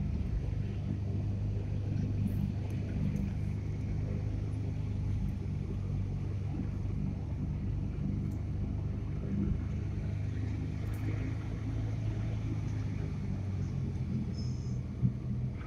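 A car driving, heard from inside the cabin: a steady low engine and road rumble with no speech. There is a single short knock near the end.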